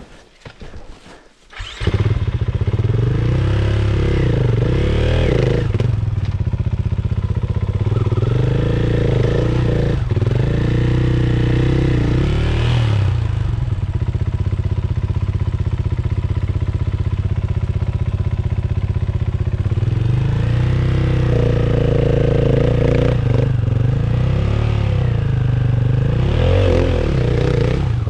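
Dirt bike engine running hard, its revs rising and falling over and over as the throttle is worked. It comes in suddenly about two seconds in, after a few faint knocks.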